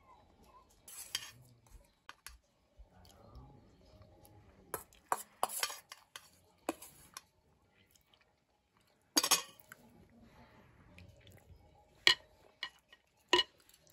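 Metal spoons clinking and scraping against a glass serving bowl and a small metal plate as broth is ladled out. The clinks are scattered and irregular, with a longer scrape about nine seconds in and two sharp clinks near the end.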